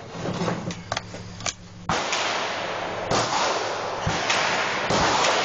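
Light metallic clicks of cartridges and a revolver cylinder being handled, then from about two seconds in a steady rushing noise broken by several sharp gunshots.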